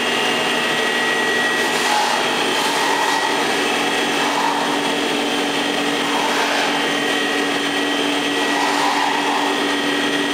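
Electric motor running steadily, a constant hum and whine with several held tones.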